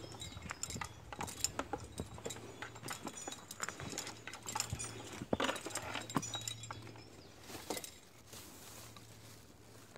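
Footsteps of someone walking over rocky, sandy ground, irregular knocks and scuffs with light metallic clinking. The steps thin out to a soft rustle about seven seconds in.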